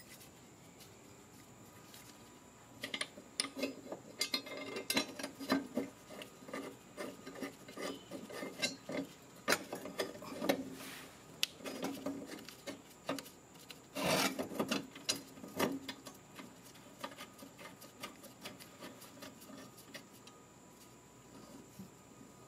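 Steel mower blade being worked onto its blade adapter and mounting bolt by hand: irregular scraping and light metal clicks, starting about three seconds in, with the loudest clatter about fourteen seconds in, dying away after about sixteen seconds.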